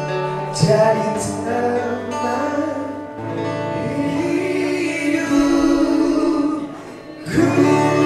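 Live male vocals singing a pop ballad over an acoustic guitar, with long held notes, through a small PA speaker.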